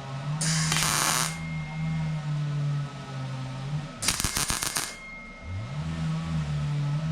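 Two short bursts of welding crackle as tack welds go into the sheet-metal panel, one about half a second in and one about four seconds in, each lasting under a second. Background music with a low, stepping melody plays throughout.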